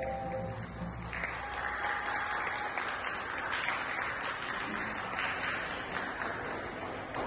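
The last notes of a caklempong (rows of small bronze kettle gongs) ring and fade in the first moment. Audience applause starts about a second in and thins out near the end.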